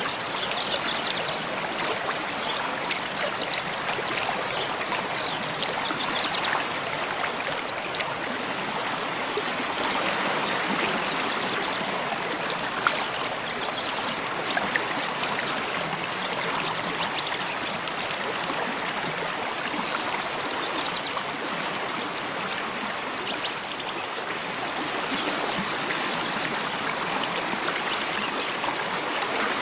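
Mountain stream flowing steadily over rocks, with faint bird chirps now and then above the water.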